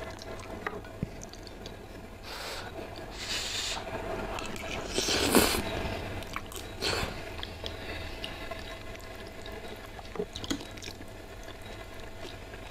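A person slurping up saucy, spicy instant noodles (mie nyemek) and chewing wetly, in several short slurps, the loudest about five seconds in. Small clicks of the metal fork and spoon come in between.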